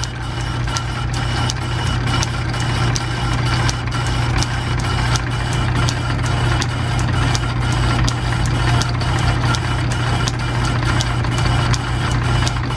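Belt-driven metal lathe running at low speed, taking a light cut on the outside diameter of a split piston ring. A steady low hum, with a sharp tick repeating about three times a second.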